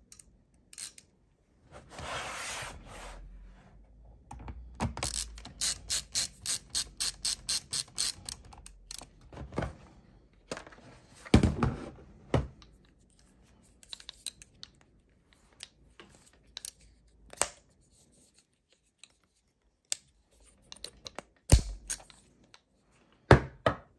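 LTT ratcheting screwdriver clicking through its ratchet at about three clicks a second for several seconds, among handling knocks and a few sharp thumps.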